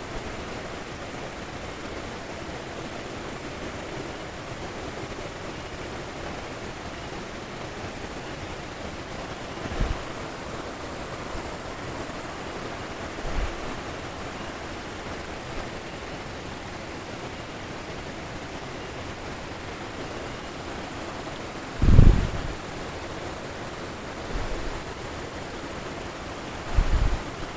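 Steady rush of water from a rocky stream's rapids. A few short low thumps break through it, the loudest about two-thirds of the way in.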